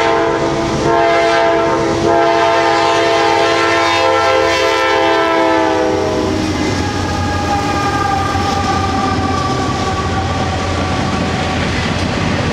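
Freight locomotive horn, the lead Norfolk Southern GE C40-9W's, sounding loudly close by in a steady chord with brief breaks about one and two seconds in, then dropping in pitch about six seconds in as the locomotive passes and fading. After it, the GE diesel locomotives and the intermodal flatcars roll past with wheel clatter on the rail joints.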